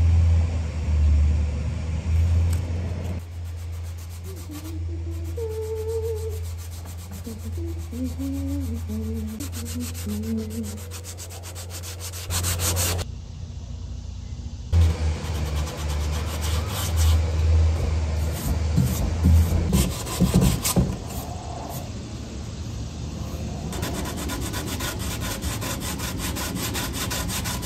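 A hardened epoxy wood-putty patch on a wooden molding is filed and sanded by hand in quick rubbing strokes, pausing briefly about halfway through, over a steady low hum.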